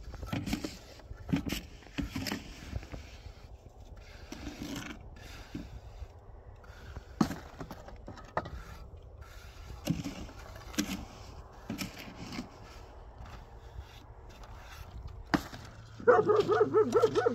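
Metal shovel or trowel scraping and scooping cement mortar in a plastic tub, in short strokes every second or so. Near the end a loud wavering call begins.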